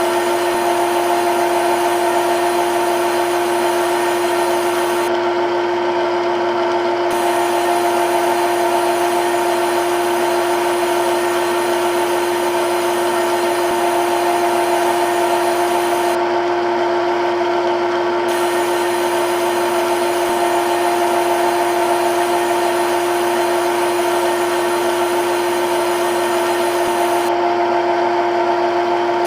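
CNC lathe spindle running and cutting in a CNC simulator: a steady mechanical whine with a constant pitch over a hiss, unchanging throughout, with a slight thinning of the hiss about every eleven seconds.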